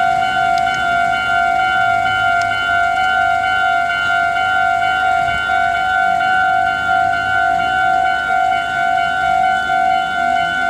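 Japanese railway level crossing's electronic warning bell ringing: a steady pitched alarm tone that pulses at an even rate, sounding while the barriers are down for an approaching train.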